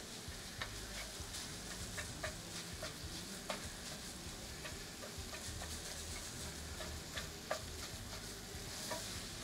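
Shredded chicken sizzling quietly in an uncovered skillet, drying out, while a spatula chops and stirs it, with scattered light taps of the spatula against the pan.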